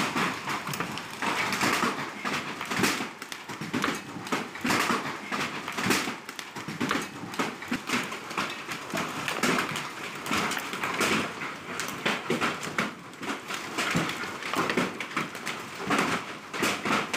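Hail coming down hard, a dense, irregular clatter of hailstones striking the ground and nearby hard surfaces, rising and falling in strength.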